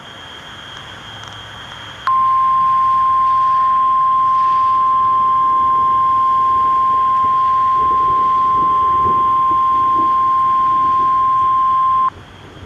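NOAA Weather Radio warning alarm tone: a single steady, loud tone of about 1050 Hz. It starts abruptly about two seconds in, holds for about ten seconds and cuts off suddenly, over radio hiss. It signals that a National Weather Service warning is about to be broadcast.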